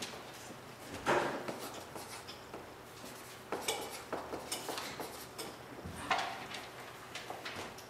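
Short, scattered scratching and rustling of paper: a felt-tip marker writing figures on a flip-chart pad and a long paper strip being handled, with several brief bursts over a low room hum.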